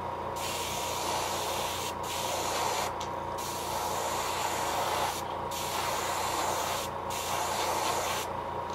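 Airbrush spraying gloss black paint at about 20 psi onto a lure blank: a steady hiss of air and paint, cut by about five short breaks as the spraying stops and starts.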